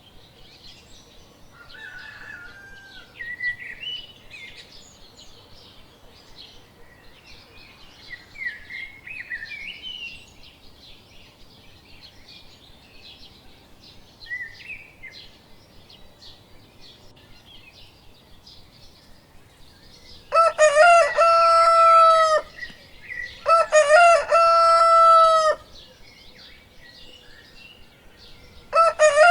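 Small birds chirping on and off, then a rooster crowing loudly twice, about two seconds each, starting about twenty seconds in, with a third crow beginning at the very end.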